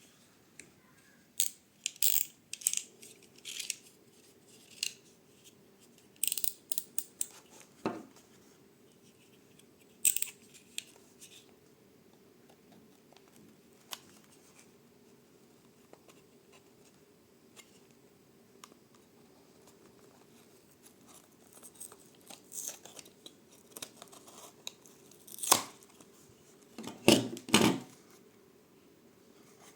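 Toy car packaging being handled and opened: scattered crinkles, tears and sharp clicks, with the loudest cluster near the end, over a faint steady hum.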